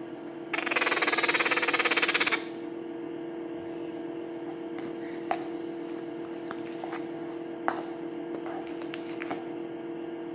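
A young parrot's harsh, rapidly pulsing begging call, loud, for nearly two seconds, over a steady low hum. A few light, sharp clicks follow later.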